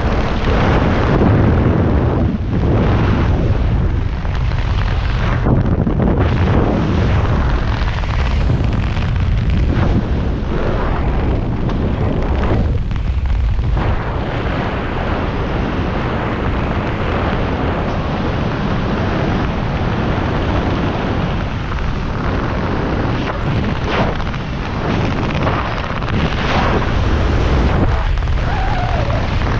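Wind buffeting an action camera's microphone during a parachute descent under an open canopy: a loud, low rushing noise that swells and eases.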